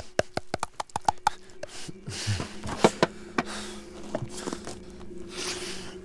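A man gulping a drink from a metal can, with quick clicking swallows in the first second or so. Then two heavy, breathy gasps as he catches his breath. A low steady hum comes in early on and carries on under the breathing.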